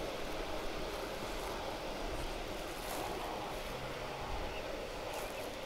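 Steady wind noise on the microphone in the open air, with a few faint ticks.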